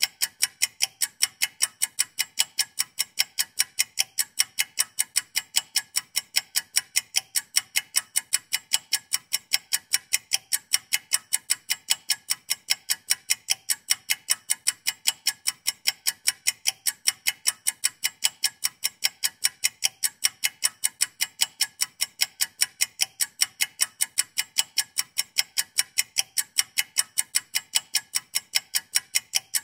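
Clock-ticking sound effect counting down a two-minute timer: sharp, evenly spaced ticks, a few per second, without a break.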